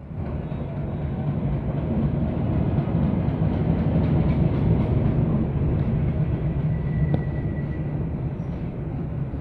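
Metre-gauge passenger train rolling slowly past, a steady low rumble of locomotive and carriages on the rails. A brief thin high squeal comes about seven seconds in.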